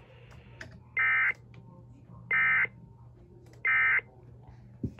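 Three short, identical bursts of Emergency Alert System (SAME) digital data tones, a little over a second apart: the end-of-message signal that closes the weather alert. They play over a faint steady hum, with a small click near the end.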